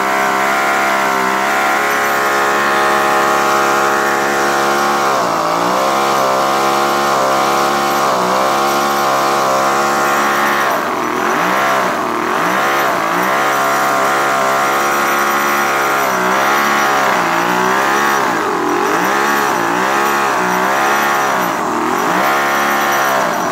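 Toyan FS-V800 miniature four-stroke nitro V8 model engine with twin carburettors running flat out. It holds steady for about five seconds, then its pitch dips and climbs again and again as it is blipped, and it cuts off suddenly at the very end.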